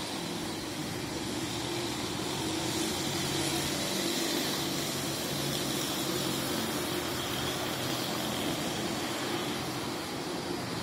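Steady city street traffic: vehicle engines running and passing, a little louder about four seconds in.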